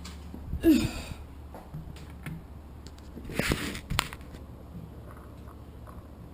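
Handling noises as an aftermarket air filter is worked onto the carburetor adapter of a small engine: short rustles and scuffs, a louder rustle about three and a half seconds in, then a sharp click.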